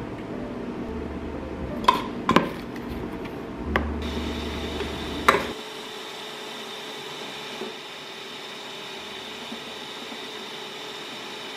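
A few knocks and clicks from the plastic jug being handled, then an ESCO electric hand mixer running steadily with a constant high whine, whipping espresso into dalgona cream.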